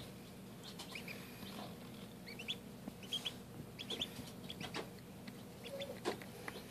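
Indian Runner ducklings feeding at a plastic chick feeder: irregular quick taps and clicks of their bills on the feeder and feed, with a few short, high peeps scattered through.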